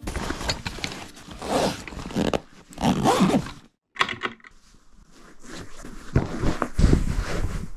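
Clothing and fishing kit being packed by hand: fabric rustling, scraping and knocking as a wooden drawer is handled and things are pushed into a fabric holdall. The sound drops out briefly a little before halfway.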